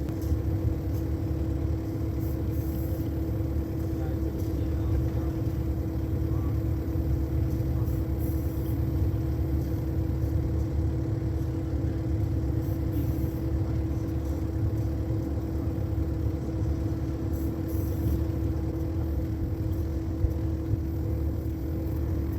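Cat 308 mini excavator's diesel engine running steadily while working, with a constant steady tone held over its low engine note.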